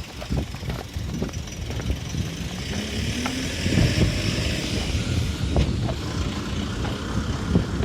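A vehicle passing on the road: its hiss swells in the middle and fades, over a constant low rumble.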